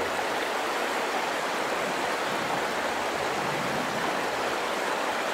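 Steady rush of flowing water, like a stream running, even and unbroken.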